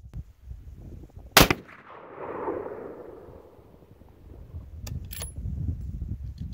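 A single shot from a 7mm Remington Magnum rifle: one sharp, loud crack about a second and a half in, followed by a rumbling tail that swells and fades over about two seconds. A few sharp clicks come near the end.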